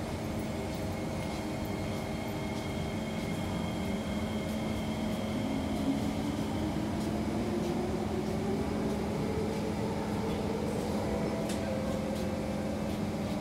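Kawasaki C151 electric multiple unit running, heard from inside the train: a steady running hum with a few held tones. About a third of the way in, a traction-motor whine rises steadily in pitch as the train picks up speed.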